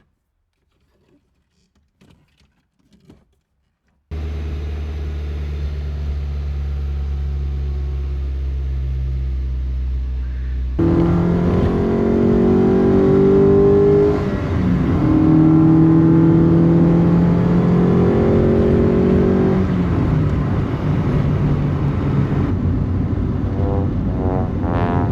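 Acura Integra's four-cylinder engine, faint at first, then running steadily from about four seconds in. After an abrupt change it is louder and pulling hard, its pitch climbing and dropping back twice as it shifts up through the gears.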